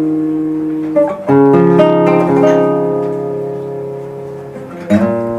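Guitar accompaniment: a chord rings and fades, a new chord is struck a little over a second in and left to ring, and another is struck near the end.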